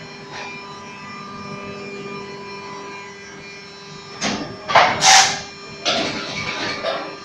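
Automatic injection moulding machine for gallon caps running with a steady hum. A little after four seconds comes a cluster of loud knocks with a short hiss, and another knock follows about a second later.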